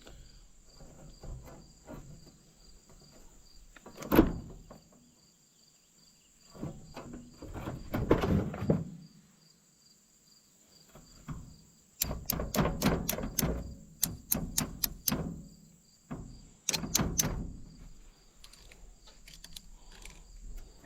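Metal clinks and rattles in scattered bursts, with a quick run of sharp clicks partway through: steel roller chain and its connector link being handled and fitted to the hay baler's reel drive. Crickets chirp steadily underneath.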